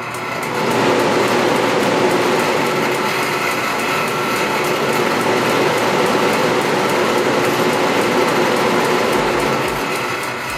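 Forced-air propane heater's electric fan, wired through a newly fitted dimmer, starting up about half a second in and running with a loud, steady whir that eases off near the end. The gas is off, so only the fan is running.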